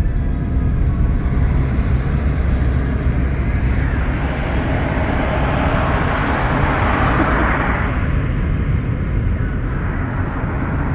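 Road noise of a moving car heard from inside: a steady low rumble of engine and tyres. A louder rush of passing traffic swells through the middle and drops away abruptly about eight seconds in.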